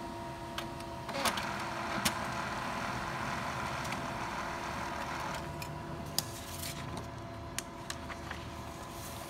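HP Color LaserJet M277n colour laser printer running a print job as a page feeds out. There is a steady motor whine, a louder rushing stretch from about one to five seconds in, and scattered clicks.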